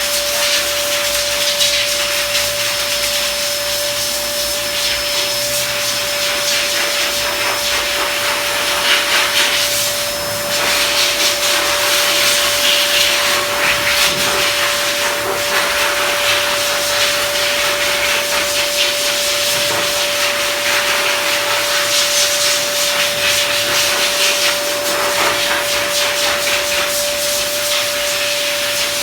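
Pet grooming blow dryer running steadily: a constant whine over a loud rush of air, the hiss swelling and fading every few seconds.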